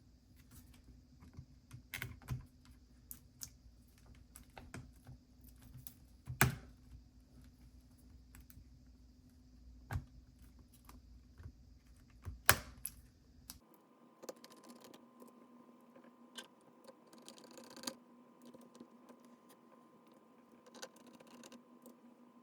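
Scattered light clicks and taps of hands working on the opened laptop's internals, with two sharper clicks about six and twelve seconds in.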